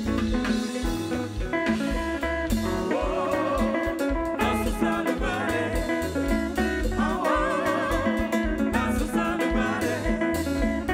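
Live konpa band music: electric guitar over a repeating bass line and drums, with a wavering lead line coming in about three seconds in.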